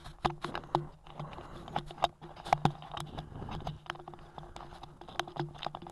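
Camera handling noise: irregular clicks, knocks and rubbing on the microphone as the camera is moved and repositioned, over a faint steady low hum.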